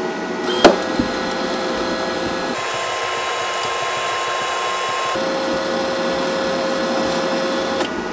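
Wire-feed motor and drive rollers of a Unimig Viper 182 MIG welder running while the inch button is held, pushing welding wire up the torch lead. It makes a steady whine over a hiss, and its pitch shifts up partway through and drops back down a couple of seconds later. A sharp click comes a little under a second in.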